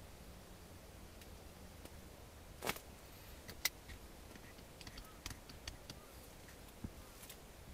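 Quiet background with a handful of small clicks and taps: a knock a little under three seconds in, a sharper click a second later, then a scatter of light ticks.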